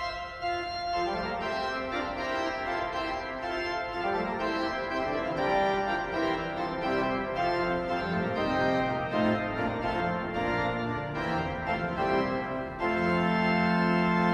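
Pipe organ playing, several lines of sustained notes moving over a low bass line. Near the end it swells into a full, loud held chord.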